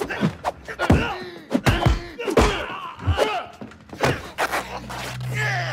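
Film fight sound effects: a quick string of about nine punch and body-hit impacts, several followed by grunts and shouts from the fighters. A low steady hum comes in during the last second.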